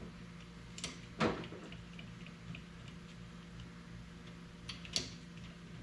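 A few light metallic clicks and knocks, the loudest about a second in and another near the end, from bolts and hand tools being worked on a torque plate bolted to an engine block, over a steady low hum.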